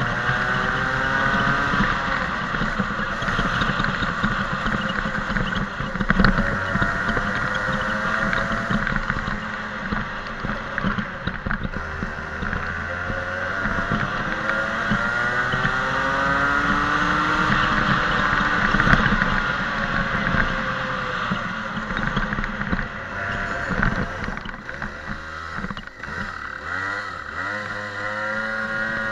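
Daytona DMAX rental go-kart engine heard onboard during a lap. Its revs climb and fall repeatedly as the kart accelerates and slows, dropping low about 25 seconds in before rising again.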